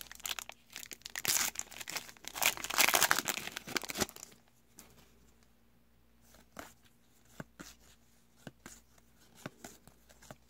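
Trading card pack wrapper crinkling and tearing open. About four seconds in this gives way to soft, scattered ticks as the cards are slid off the stack one by one.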